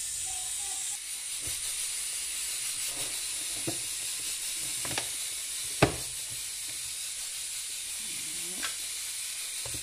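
A plastic push-down vegetable chopper being worked: a few sharp plastic clicks and knocks as its lid is shut and pressed down through the dicing grid, the loudest about six seconds in, over a steady hiss.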